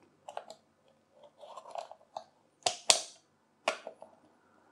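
Cleat bolts on a cycling shoe being snugged down with a 4 mm hex key: a few light ticks and a soft rustle, then three sharp metallic clicks a little past halfway.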